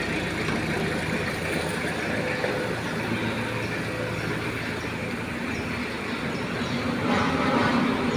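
M151 military jeep running, a steady vehicle and engine noise that grows a little louder near the end.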